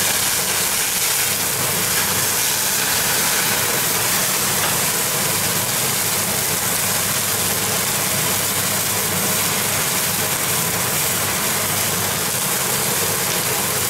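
A steady mechanical hum and rush, like a fan running on a high setting, with a veal chop sizzling and spitting fat on the glowing heating elements of a Severin electric steak grill.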